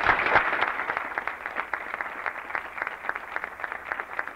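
An audience applauding: many hands clapping at once, coming in suddenly, loudest in the first second, then going on steadily.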